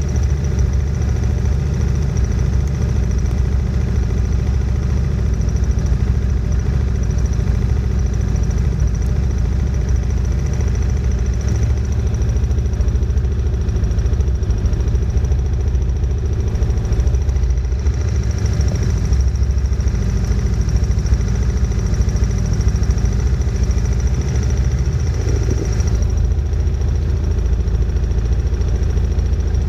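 CFMOTO ATV engine idling steadily while the quad stands still, with a faint steady high whine above it.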